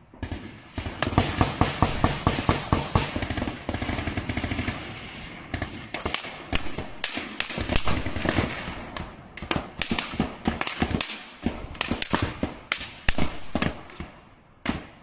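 Small-arms gunfire: sustained rapid bursts of automatic fire, then scattered single shots and short bursts, with one last shot near the end.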